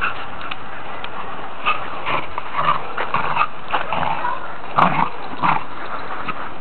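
Welsh Corgis and a Corgi puppy playing, giving short, scattered dog vocalisations over steady background noise, the loudest about five seconds in.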